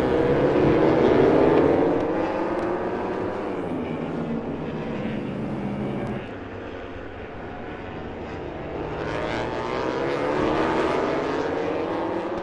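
Several MotoGP racing motorcycle engines at high revs, their pitch rising as the bikes accelerate past. The sound is loudest about a second in, drops suddenly at about six seconds, then swells again toward the end.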